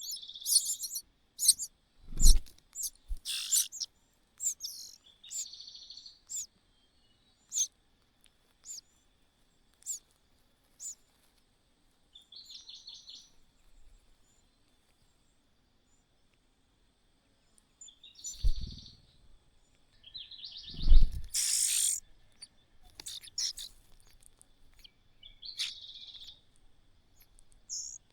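Small birds at a nest giving short, high chirps and calls, with a few rapid buzzy trills in between. Three low thumps, the loudest sounds, come about two seconds in, near eighteen seconds and near twenty-one seconds.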